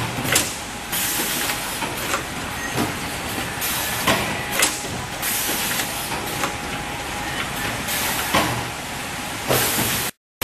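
Shrink-film packaging machine running for bottled water packs: a steady mechanical hiss, broken by sharp clacks at uneven intervals, roughly one a second. The sound cuts out for a moment near the end.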